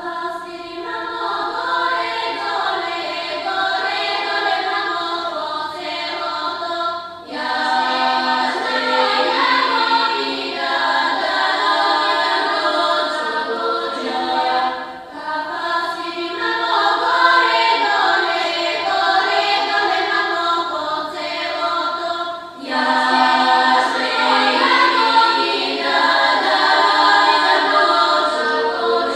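Choral music: layered voices singing held chords with a moving melody above them, in long phrases that break off and restart about every seven and a half seconds.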